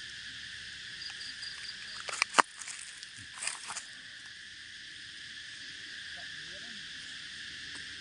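Steady high-pitched chorus of cicadas droning. A few sharp clicks and rustles come about two seconds in, the loudest a single snap, with another brief rustle a second later.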